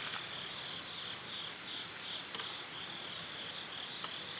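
Insects chirring in a steady, high, slightly pulsing drone, with a few faint clicks from handling.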